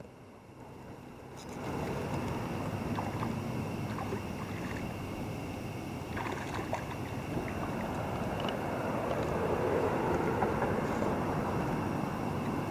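Steady rushing of water in a shallow river run, swelling about a second and a half in, with a few faint clicks over it.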